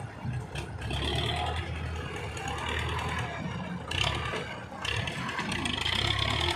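An old farm tractor's diesel engine running under load as its front loader bucket digs into clay soil, with a few scraping clatters of the bucket and loader.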